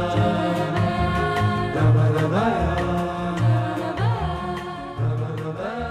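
Several paper party blowouts blown together: a chorus of held tones at different pitches that change abruptly, with a swoop in pitch about two seconds in and again about four seconds in.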